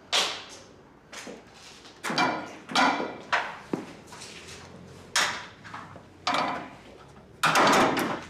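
A door banged and rattled: about eight loud bangs at uneven intervals, some with a metallic rattle, the last one a longer rattle near the end.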